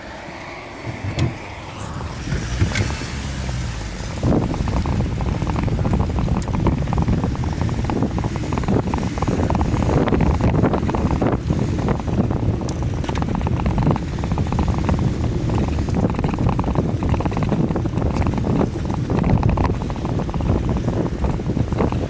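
Wind buffeting the microphone of a camera on a moving bicycle, a steady low rumble that builds over the first few seconds as the bike gets up to speed.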